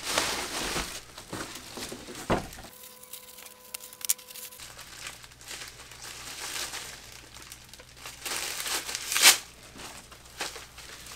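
Clear plastic parts bag crinkling and rustling as it is pulled open and handled, with a sharp crackle near the end.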